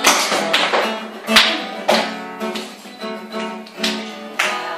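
Acoustic guitar strummed, with sharp percussive chord hits at uneven intervals about half a second to a second and a half apart.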